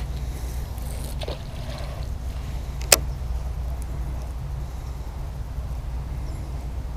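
A steady low outdoor rumble, with one sharp click about three seconds in.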